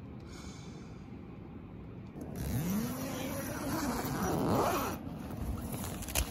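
Tent door zipper pulled open in one long run of about two and a half seconds, starting a couple of seconds in. A single sharp click follows near the end.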